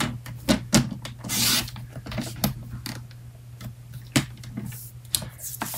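Cardstock pieces being handled and set down on a crafting table: a string of light taps and clicks, with a short rasping slide about a second and a half in.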